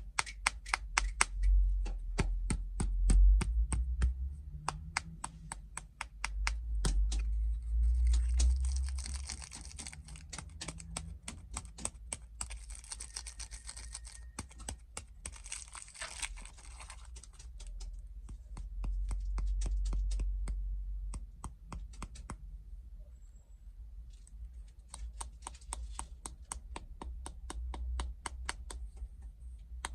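Snack packaging handled and unwrapped close to the microphone: many quick, irregular taps and clicks, with a stretch of crinkling and tearing in the middle and low handling bumps now and then.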